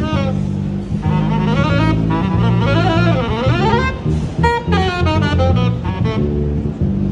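Saxophone and electric bass guitar playing live together: the saxophone plays quick, bending melodic runs, breaking off briefly about four seconds in, over a steady electric bass line.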